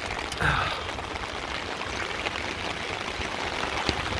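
Floodwater splashing and sloshing steadily as a person wades through it, with scattered small splashes and one brief louder sound about half a second in.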